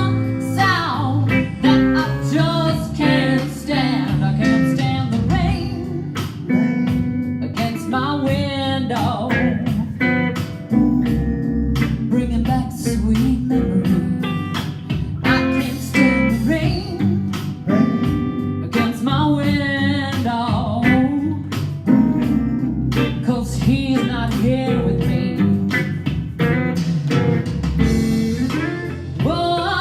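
Live duo performance of a soul-blues song: a woman singing over guitar accompaniment.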